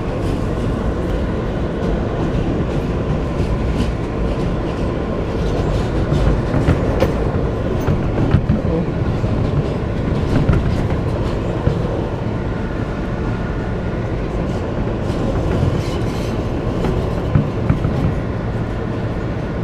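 New York City subway car running along an elevated track, heard from inside the car: a steady rumble of wheels on rails, broken by scattered clicks and clacks. A faint higher whine joins for a couple of seconds after the middle.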